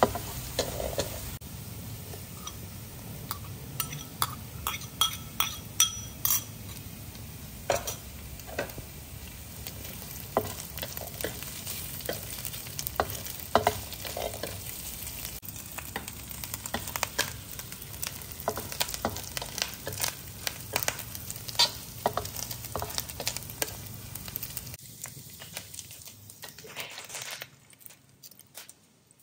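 Chopped shallots, garlic and dried prawns sizzling in oil in a wok while a spatula stirs them, with frequent sharp scrapes and taps against the pan. Near the end the sizzling stops and only a few scrapes remain.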